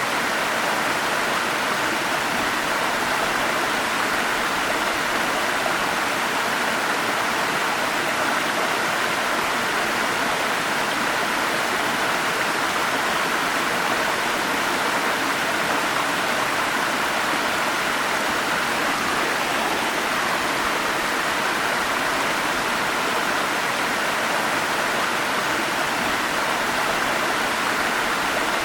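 Forest stream rushing over small falls, a steady even water noise with no other sounds standing out.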